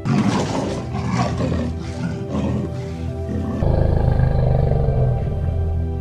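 Leopard roaring: a run of harsh, rasping calls about every half second, then a deeper sustained growl from about three and a half seconds in, over background music.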